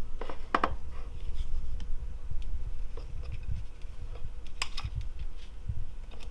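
Plastic coffee-machine brew-unit parts being handled and measured: scattered light clicks and scrapes, with a few sharper clicks just after the start and two louder ones about four and a half seconds in.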